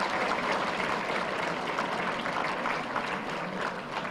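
Audience applauding, many people clapping together, slowly dying down near the end.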